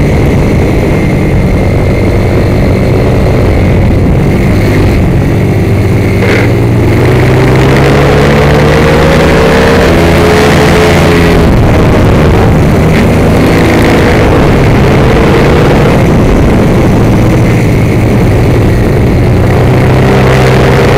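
Sport motorcycle engine under hard acceleration, recorded close by an onboard camera with wind noise. The engine note climbs for several seconds, drops sharply about eleven seconds in, then runs on at high revs through the bends.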